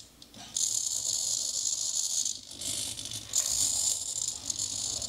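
Pair of 9-gram hobby servos on a pan-and-tilt FPV camera mount buzzing in a high whir. The buzz comes in stretches of a second or two with short pauses as the camera pans and tilts to follow the head tracker.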